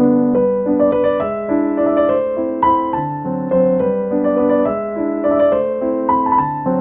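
Background piano music: a gentle melody of struck, held notes.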